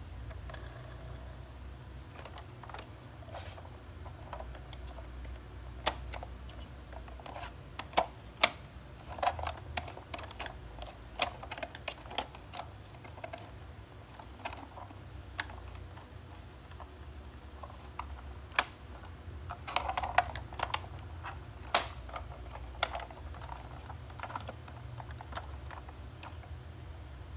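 Irregular clicks and clacks of a hard plastic toy camper van being handled, its hinged side and roof panels opened and knocked against other plastic. A low steady hum lies underneath.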